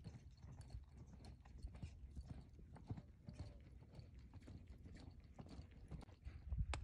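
Faint, irregular hoofbeats of a horse loping on a soft dirt arena, with a sharp click near the end.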